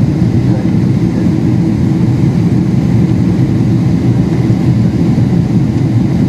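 Steady low rumble of engine and airflow noise heard inside the cabin of a Boeing 777-300ER, its GE90 engines running with the flaps extended for the approach.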